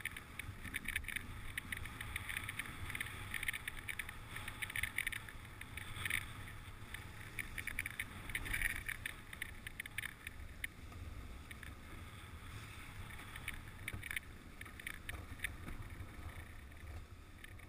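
Dog sled running over a packed snow trail: the runners hiss and crunch on the snow with quick irregular clicks and rattles, over a low rumble. The clatter eases off in the second half.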